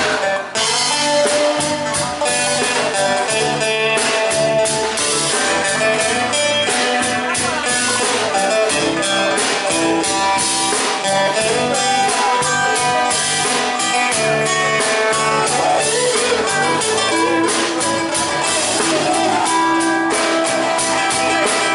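Live acoustic band playing an instrumental passage: guitar lines over bass guitar and a drum kit played with sticks, keeping a steady beat.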